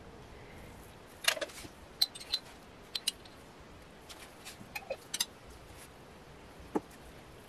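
A metal spoon clinking and tapping as dollops of yogurt and mustard are spooned onto raw chicken breasts: about ten short, sharp clicks, several in quick pairs, with a longer gap near the end.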